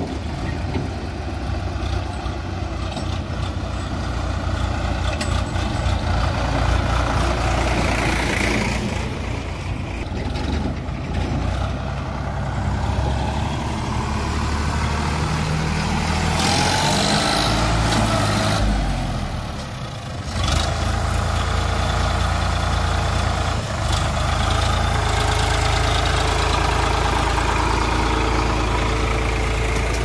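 Farm tractor's diesel engine running steadily, dipping briefly about two-thirds of the way through before carrying on.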